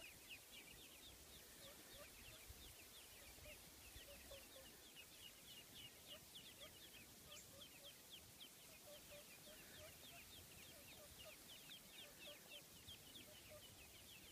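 Ducklings peeping: a faint, continuous run of short, high, falling peeps, several a second.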